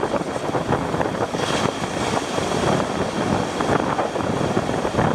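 Surf breaking at the shoreline, with strong wind buffeting the microphone in an uneven, rumbling rush.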